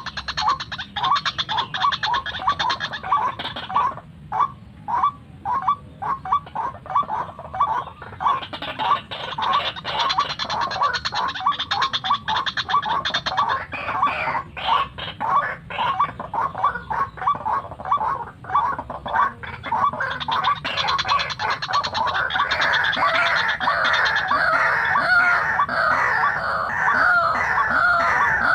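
White-breasted waterhen calling: a long run of repeated croaking notes, a few each second, that turns faster and higher into excited chattering for the last several seconds.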